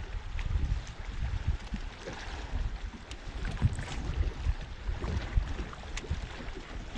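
Wind buffeting the microphone in gusts over the wash of water around a small boat, with a couple of short sharp clicks in the second half.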